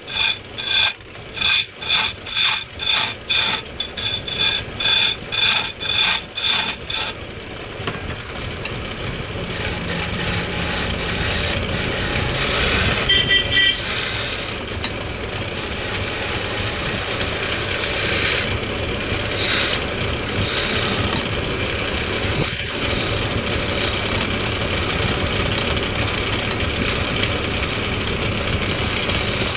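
Woodturning on a lathe, a tool scraping the spinning wood. For the first seven seconds or so it comes as rhythmic rasping strokes, about two or three a second, then settles into a steady scraping.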